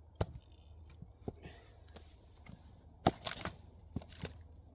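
Axe blows into a Douglas fir firewood round: a light knock just after the start, a loud sharp strike about three seconds in with a few lighter cracks and knocks after it, and another knock near the end.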